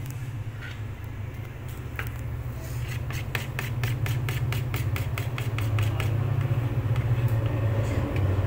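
A spoon scraping and tapping as ghee is scooped from a container into an aluminium pot of sliced onions, with a quick run of light clicks in the middle, over a steady low hum.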